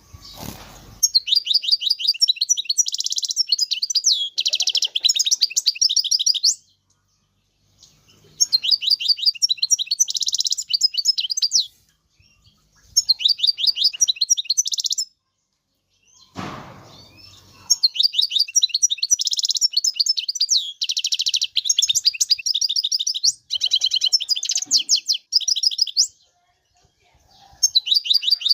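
European goldfinch singing in bouts of rapid, liquid twittering, each lasting a few seconds with short pauses between. A brief rustle or thump comes about halfway through.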